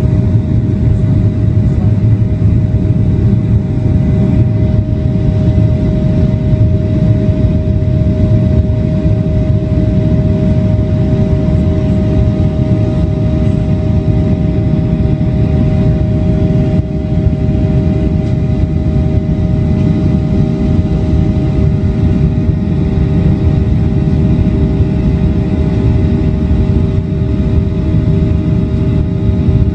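Airplane engines running at takeoff power: a loud, steady rumble with two held engine tones over it.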